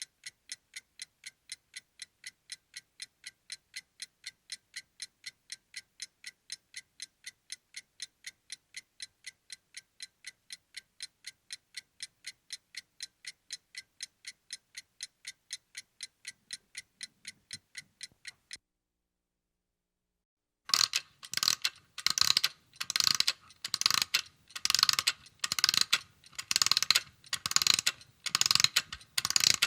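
Alarm clock ticking steadily, stopping about 18 seconds in; after a two-second pause the alarm goes off, ringing loudly in evenly repeated bursts.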